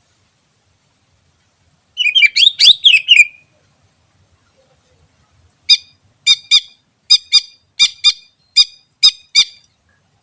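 Cucak ijo (green leafbird) singing: a short burst of fast, high warbling, then a string of about ten short, sharp high notes, mostly in quick pairs.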